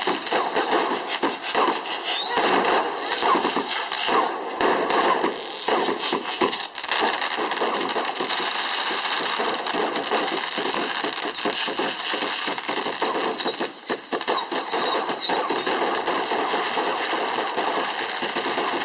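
Fireworks going off in a dense, rapid crackle of pops and bangs. About twelve seconds in there are several whistling glides that fall in pitch.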